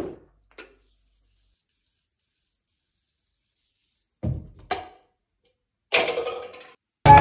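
Mostly quiet, then a short thunk a little past four seconds in, followed by a lighter click, as a red plastic cup lands upside down on top of a drink bottle. Another short sound comes about six seconds in, and music starts near the end.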